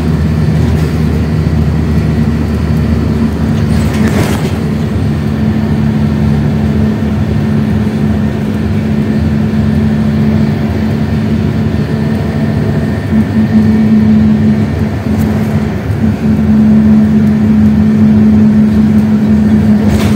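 Bus engine and road noise heard from inside the moving bus, a steady low drone. A brief knock comes about four seconds in.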